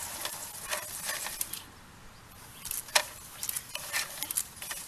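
Irregular sharp clicks and small rattles from handling a sewer inspection camera's push cable at its reel, with the loudest click about three seconds in.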